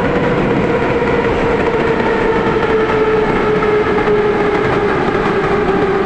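Interior running noise of a 1940-model metro car on the move: a steady rumble with a loud motor whine that slowly falls in pitch.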